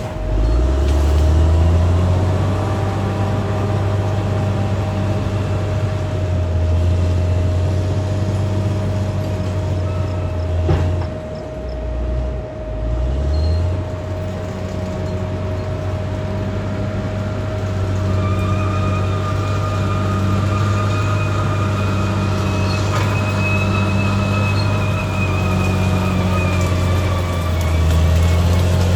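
Caterpillar D6R XL bulldozer's diesel engine running under load, with the revs dropping briefly and climbing again about halfway through. A steady whine runs over the engine, and a higher squeal joins it about two-thirds of the way in.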